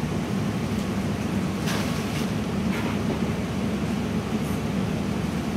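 Rotary-drum pea sheller running steadily as it shells purple-hulled peas: a constant mechanical hum with a light rattle of pods through the drum, a few brief louder rattles about two seconds in.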